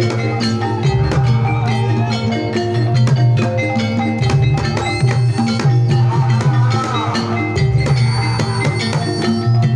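Banyumasan tayub gending: a Javanese gamelan-style ensemble playing, with mallet-struck keyed instruments in steady repeating figures over regular drum strokes and a pulsing low bass.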